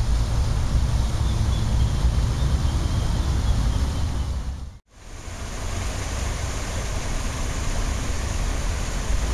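Water spraying and splashing onto a pond. After a brief dropout about five seconds in, a small waterfall pours into a rocky pool. Wind rumbles on the microphone.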